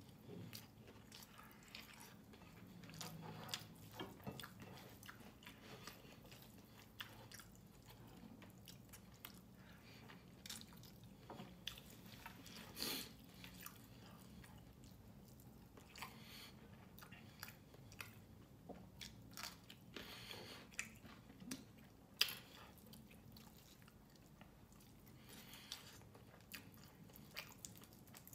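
A person chewing and biting mouthfuls of chicken adobo and rice, heard close up as soft, scattered clicks and smacks, a few of them sharper than the rest.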